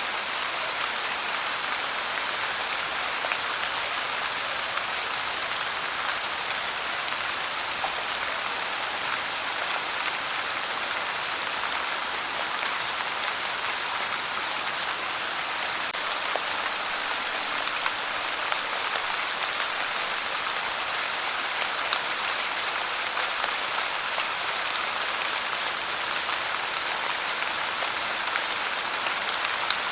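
Steady rain pouring and pattering on a surface, an even hiss with small scattered drop ticks.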